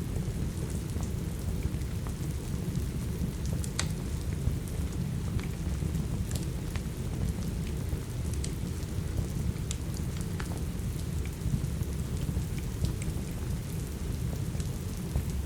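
Steady rain with a constant low rumble, overlaid by scattered sharp pops and crackles from a burning wood fire.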